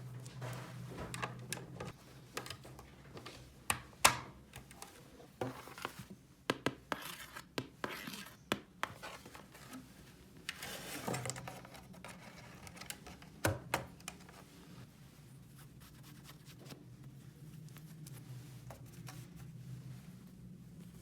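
Small toy pieces being handled: scattered sharp clicks and taps with scratching and rubbing, one loud click about four seconds in, then quieter handling over a low steady hum in the second half.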